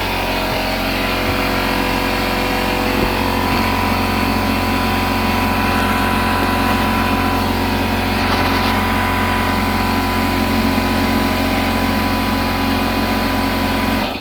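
A motor or engine running at a steady speed, then shutting off abruptly at the very end.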